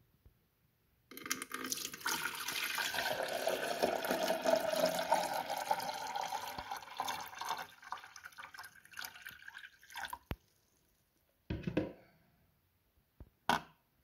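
Water poured from a jug into the clear plastic water tank of a De'Longhi Nespresso Inissia coffee machine. It splashes steadily for about six seconds, then trickles and drips to a stop. Two short knocks follow near the end.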